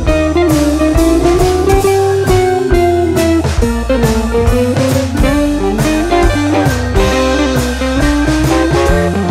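Background music: an instrumental in a blues-rock style, with guitar over bass and a steady drum beat.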